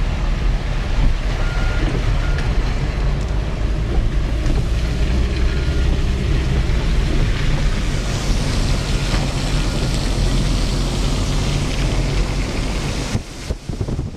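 Steady road noise of a car driving on a wet road, heard from inside the cabin: low engine and road rumble under the hiss of tyres on water. It drops away sharply about a second before the end.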